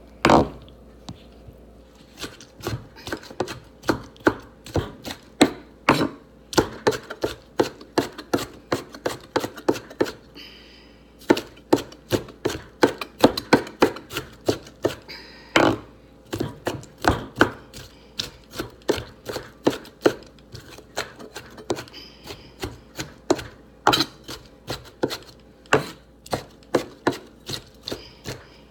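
Knife chopping green bell pepper finely on a wooden cutting board: quick runs of sharp strikes, several a second, broken by a few short pauses.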